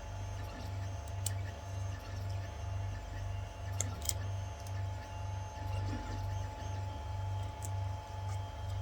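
A low machine hum pulsing about twice a second, with a few sharp clicks of resin supports snapping off a 3D print.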